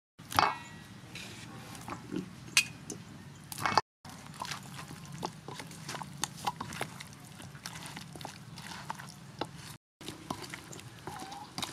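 Wet stirring and squelching of a thick batter in a stainless-steel mixing bowl, a wooden spoon and then hands working raw chicken drumsticks through it, with irregular taps and clinks against the bowl. A short, loud, high cry sounds just after the start.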